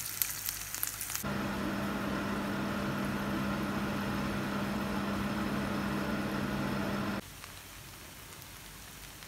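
Dried fish (tuyo) sizzling in oil with garlic in a frying pan for about the first second. A steady low hum with a whirring hiss follows and cuts off suddenly about seven seconds in, leaving only faint room noise.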